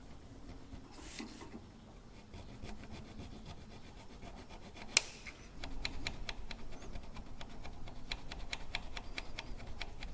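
Small file rasping back and forth across the John Deere B's crusty ignition breaker points to clean them. The strokes come quicker and more even from about halfway, at roughly five a second, after a single sharp click.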